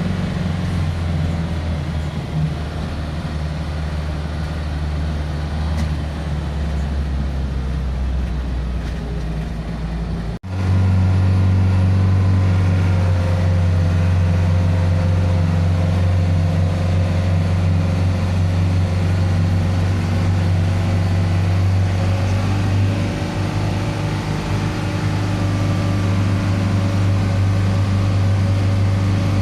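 Isuzu 4HK1 four-cylinder turbodiesel in a mid-size bus running steadily with a low hum, the rebuilt engine sounding normal. The sound cuts out abruptly about ten seconds in, then resumes slightly louder and steadier.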